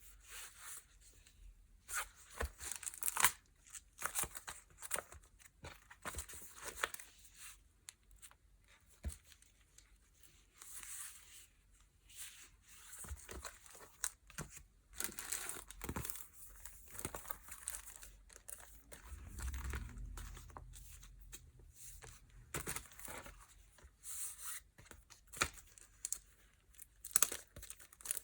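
Packaging being unwrapped by hand: irregular crinkling, rustling and tearing in short bursts, with a brief low bump about two-thirds through.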